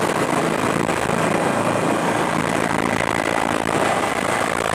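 Helicopter engine and rotor running steadily on the helipad before takeoff, heard from inside the cabin, with a thin, steady high whine over the dense rumble.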